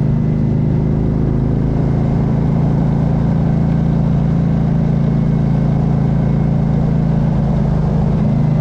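Motorcycle engine running at a steady cruise, its pitch holding even, with a rush of wind noise underneath.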